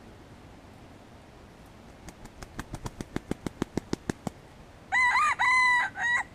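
Red junglefowl rooster beating its wings in a run of sharp claps that quicken and grow louder, then crowing once, a loud crow of three linked parts lasting about a second and a half.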